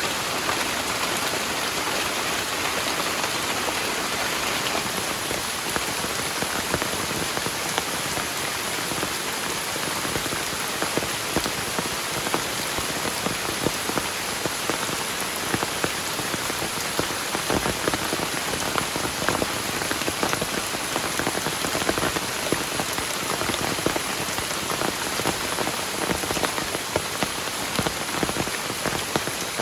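Heavy rain falling steadily, with many individual drops tapping sharply on a surface close by; the taps become more frequent after the first few seconds.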